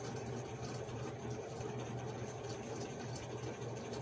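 A steady low machine hum, even in level throughout, with a few faint light ticks over it.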